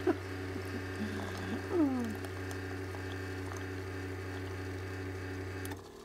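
Keurig coffee maker's pump humming steadily while it brews, coffee pouring into a mug, with a short falling sound about two seconds in; the hum cuts off suddenly near the end as the pump stops.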